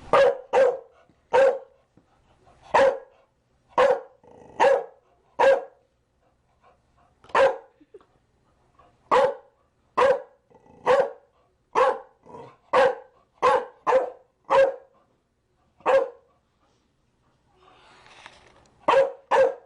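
Chow Chow barking: single short barks about once a second, with uneven pauses, a longer break of about three seconds near the end, then two quick barks.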